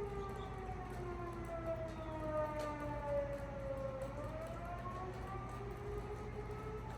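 Outdoor tornado warning siren sounding a wail during a test. Its pitch slides down for about four seconds, then rises again.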